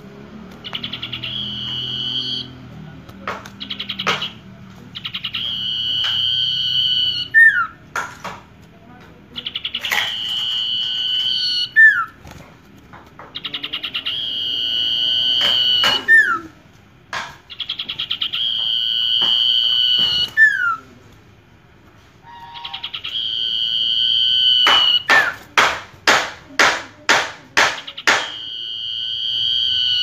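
Common iora (sirtu) singing: long, steady, high whistled notes, each followed by a short slurred note, repeated every few seconds. Near the end it breaks into a rapid run of sharp notes.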